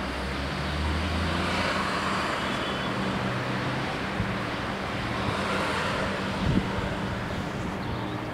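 An engine running with a steady low drone, over road traffic noise that swells and fades twice.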